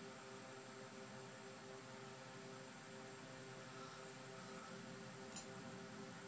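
Faint steady hum with a high steady whine and a faint pulsing low tone, and one sharp brief click about five seconds in.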